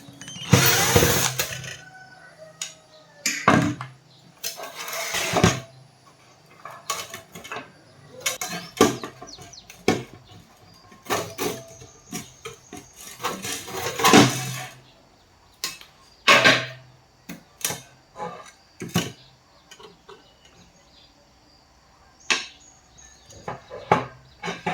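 Tools and metal parts being handled during a welding machine repair: irregular clicks, knocks and clatter, with a few longer scraping stretches of about a second.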